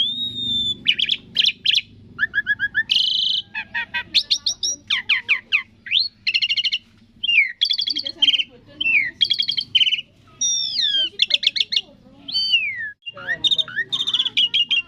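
Asian pied starling singing a long, varied song: clear whistles that glide up and down, mixed with fast chattering trills, with a brief pause about 13 seconds in.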